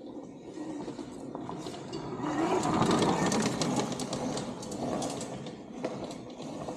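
Electric dirt bike, a YZ85 converted to a 72 V, 8000 W hub motor run as a mid drive, riding past on a dirt trail: the running motor and drive with the tyres crackling over the dirt. It grows louder, is loudest about three seconds in as it passes close by, then fades as it rides away.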